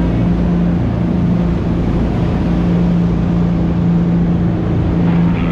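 Charter fishing boat's engines running steadily underway, a constant deep drone, with the rush of wind and churning wake water.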